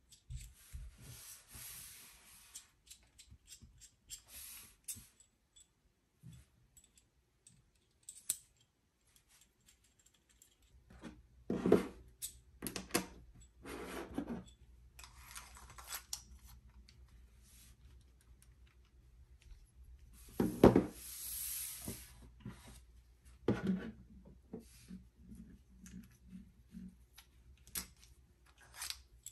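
Handling noise from a precision screwdriver and its bit case: light clicks and rubs as the parts are worked by hand, with a few louder knocks as the case is picked up and set down on the table.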